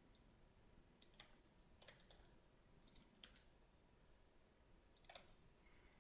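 Near silence broken by several faint, sharp clicks of a computer mouse and keyboard, scattered irregularly.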